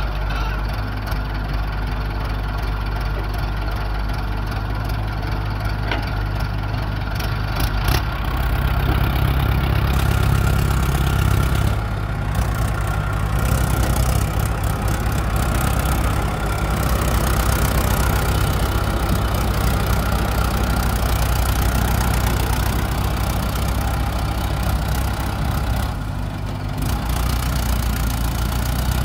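Mahindra tractor's diesel engine running with a clattering note as it pulls a soil-laden trolley away, growing louder about eight seconds in. The excavator's engine runs alongside it.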